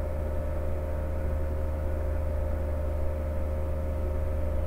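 Steady, unchanging low hum with a thin constant tone and a haze of hiss: background noise of the recording.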